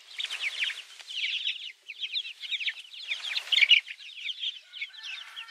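A flock of young chicks peeping continuously, many short, high, falling peeps overlapping into a steady chorus.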